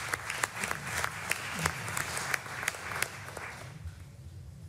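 Audience applause, a dense patter of many hands clapping that dies away about three and a half seconds in.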